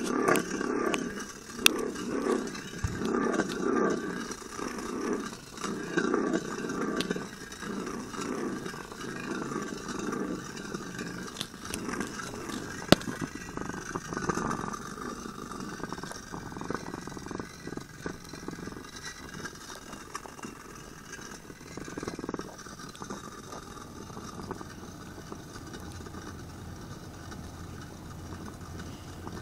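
Plastic Beyblade spinning top whirring as it spins on a hard floor. The sound swells and fades about once a second at first, then grows quieter and steadier in the second half, with two sharp clicks, one about two seconds in and one near the middle.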